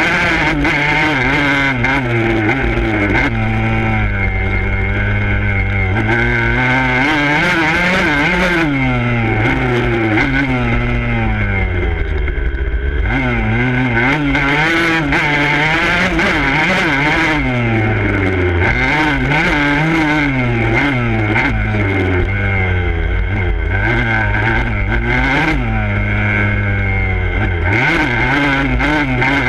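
Motocross dirt bike engine revving hard, its pitch climbing and dropping again and again as the rider opens and closes the throttle and shifts, heard close up from a handlebar mount.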